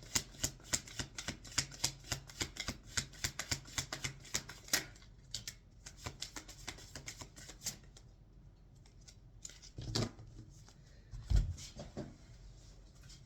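Tarot cards being shuffled by hand: a rapid run of crisp card clicks for about five seconds that thins out and stops around eight seconds in. Then come two short soft thumps a second and a half apart.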